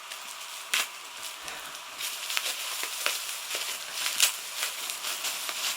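Plastic wrapping crinkling and crackling as it is cut and pulled off the end of a charging cable, with a few sharp clicks.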